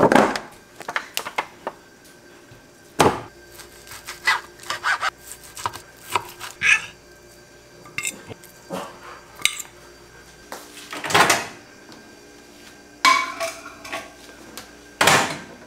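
Kitchen clatter: scattered clicks, taps and clinks from handling a plastic food container, a fork against a ceramic plate and a microwave door, with a few longer scrapes.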